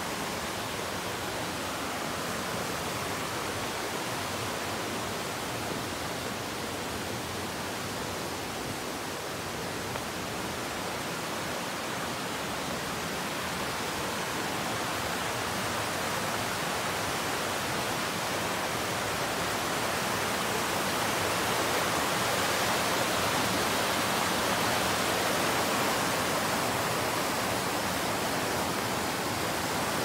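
Mountain stream rushing over rocks and rapids: a steady rush of water that gradually grows louder in the second half.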